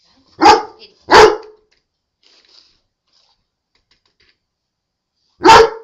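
Black Labrador retriever barking loudly three times: two barks close together near the start, then a third near the end.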